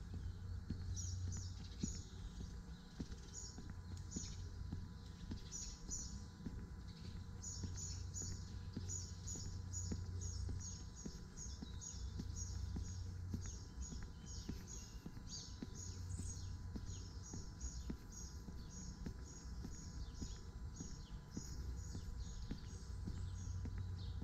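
A small bird repeating a quick high chirp, about two a second, over and over, with the walker's footsteps knocking softly underneath.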